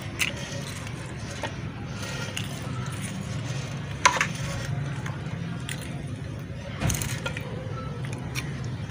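Steel spoon scooping chickpea chaat from a pot into a serving bowl: soft scrapes and a few light clinks against the dish, the sharpest about four seconds in and another near seven seconds, over a steady low hum.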